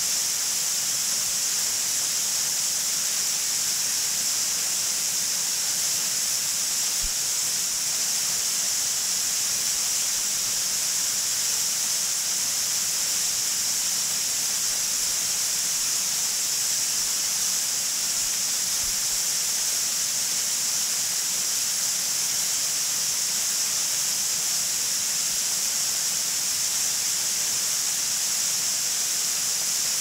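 Fudo Falls, a narrow waterfall splashing down a rock face, giving a steady rushing hiss that sits high in pitch and does not change.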